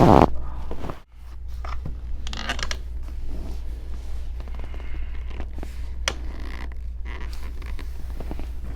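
A low steady hum under faint rustling and scraping of clothing and hands against a treatment table, with a short click about six seconds in.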